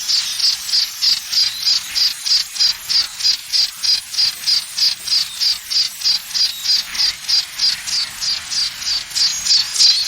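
High-pitched, cricket-like chirping pulses, about four a second, played as a simulated tinnitus sound. The pulses grow a little louder near the end.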